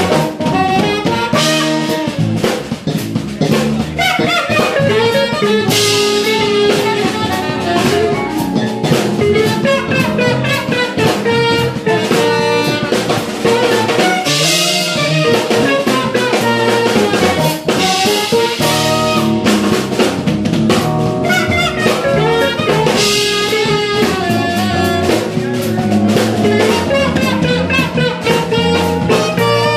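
Live jazz-fusion band playing: saxophone lines over electric guitar, electric bass, keyboards and a drum kit with recurring cymbal crashes.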